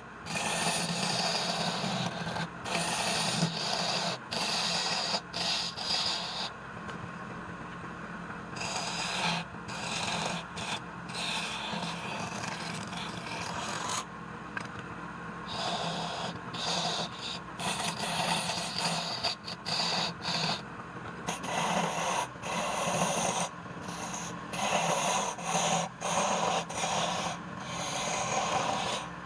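Wood lathe running with a steady low hum while a hand tool scrapes against the spinning wood in repeated rough bursts of a few seconds, with short gaps between.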